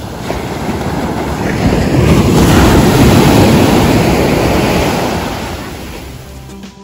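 Sea waves breaking on a beach: the surf swells to a peak a couple of seconds in, then washes back and fades.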